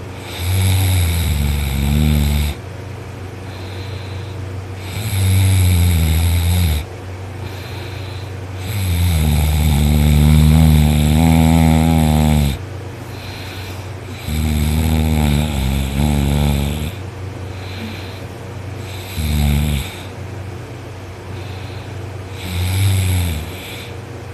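A man snoring loudly while asleep on his back: six heavy, rattling snores a few seconds apart, the longest about four seconds and the last two short, over a steady low hum.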